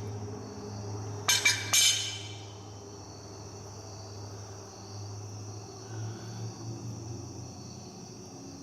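Three quick, ringing hammer strikes on steel about a second and a half in, driving the steering brace bearing onto the steering box shaft past a burr on its end. Crickets chirp steadily over a low hum.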